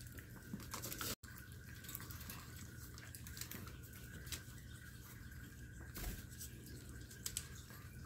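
Maltese dog licking and eating soft, ripe persimmon flesh from a hand: faint, scattered wet clicks of lapping and mouthing, with a brief dropout about a second in.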